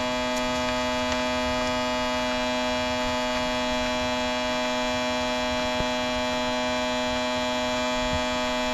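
A steady hum made of several held tones, unchanging in pitch and level.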